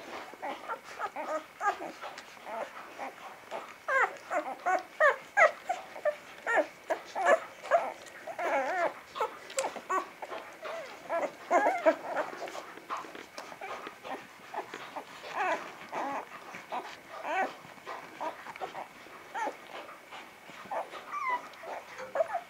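Young vizsla puppies squeaking and whimpering in a rapid run of many short high calls, thickest in the first half and thinning out toward the end.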